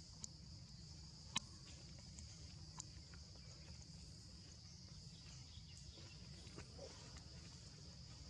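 Faint, steady, high-pitched chirring of insects such as crickets or cicadas over a low rumble, with a few small clicks; the sharpest comes about a second and a half in.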